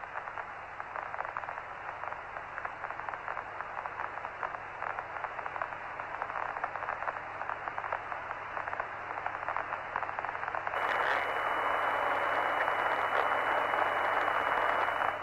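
Crackling radio static and hiss on the Apollo 11 voice channel, with no clear voice. About eleven seconds in, a louder, fuller hiss joins and runs on.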